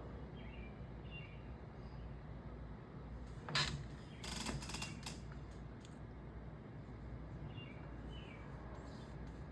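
Steady outdoor background noise with a few faint bird chirps. A little past the middle comes a short, loud mechanical clatter, followed by about a second of rattling clicks.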